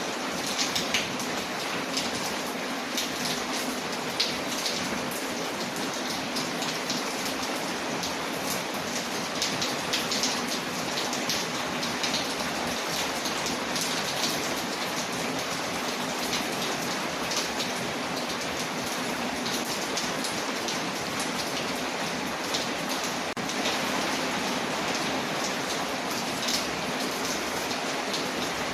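Steady rain, with many short, sharp crackles and ticks scattered through it.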